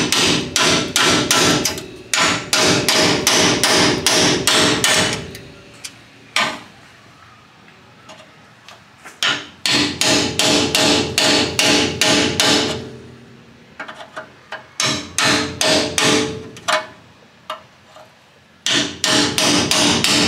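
Hammer driving a cold chisel into a sheet-steel car panel, in runs of quick, even blows, about three a second, with short pauses between runs. Each blow has a metallic ring. The chisel is splitting drilled-out spot welds so the panel can be peeled off.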